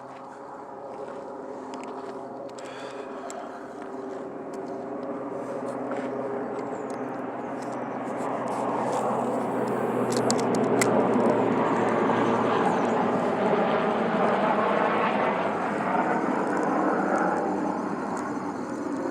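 An aircraft flying over: a steady engine drone that builds slowly to its loudest about halfway through, then slowly fades.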